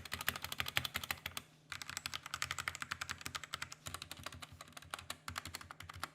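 Drop ENTR tenkeyless mechanical keyboard with Gateron Yellow linear switches being typed on quickly in a sound test: a rapid run of keystroke clacks, with a brief pause about a second and a half in.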